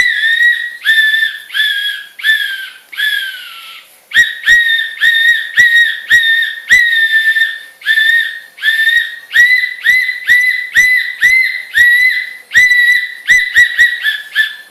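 A long run of short, high-pitched squeaks, all at nearly the same pitch, about one and a half a second, each starting sharply and some sliding down as they end, with one brief pause about four seconds in.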